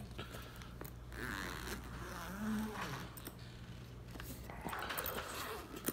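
Rustling, scraping and light clicks of bags and small items being handled, over a low steady hum.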